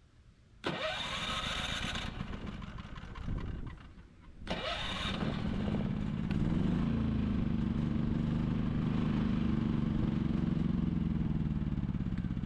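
Firman WH3200ie inverter generator being started on its electric starter: a first cranking attempt about half a second in runs for a couple of seconds and dies out, then a second crank about four and a half seconds in catches and the engine settles into a steady run.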